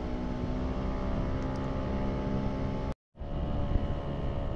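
Engine running steadily at an even speed, heard from on board the vehicle carrying the recorder, with a brief total dropout in the sound about three seconds in.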